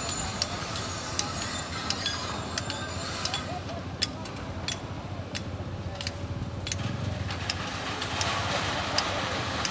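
Hydraulic excavator's diesel engine running steadily under a scatter of sharp, irregular clinks of stones knocking together. Near the end a hiss of sand and stone pouring rises as the bucket dumps its load into the truck.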